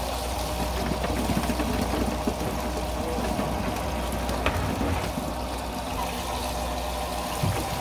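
A small fishing boat's engine idling with a steady low hum, under the sound of water trickling and splashing, with a light knock about halfway through.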